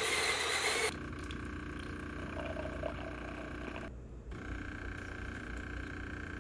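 Jura ENA 8 automatic espresso machine making a shot: a loud whirr for about the first second, then a steady hum from the machine as espresso runs out over ice, with a brief drop about four seconds in.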